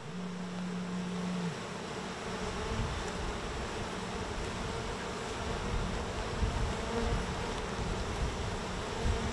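Honeybees buzzing around an open hive. One bee's steady buzz is loud for about the first second and a half, then drops back into the general hum of the swarm.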